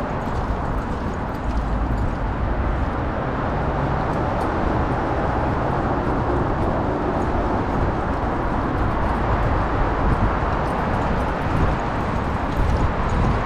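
Low, steady noise of road traffic crossing a bridge, picked up by a GoPro strapped to a walking dog's back.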